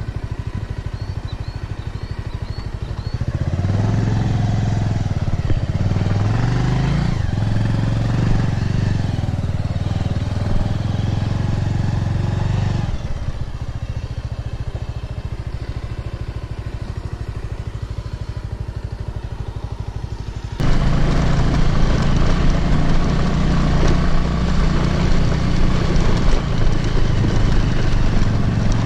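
Motorcycle engine running as the bike is ridden over a rough dirt track. The revs rise and fall a few times in the first third. About two-thirds of the way through, the sound jumps suddenly louder and rougher.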